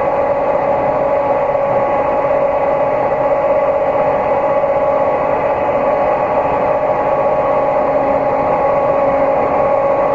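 Electric mixer running at a steady speed with a constant motor whine, its beater whisking buffer solution into a thick liquid insect diet in a glass beaker.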